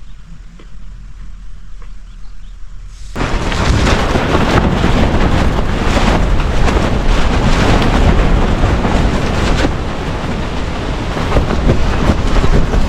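Stormy wind and rain: after a quieter stretch with a low rumble and a few faint clicks, a loud, dense noise with heavy low-end buffeting from wind on the microphone comes in abruptly about three seconds in and keeps going.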